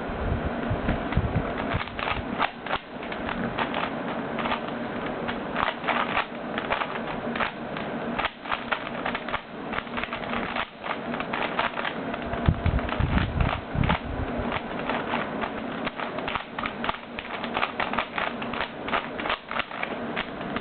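Plastic puzzle-cube layers being turned quickly by hand during a solve of a Siamese Rubik's Cube: rapid, irregular clicking and clacking, with a steady hum underneath and a few dull thumps of the cube being handled.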